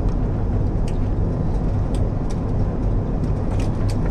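Steady cabin noise inside an Airbus A380 on descent: a low, even rumble of the engines and airflow, heard from a window seat, with a few faint ticks.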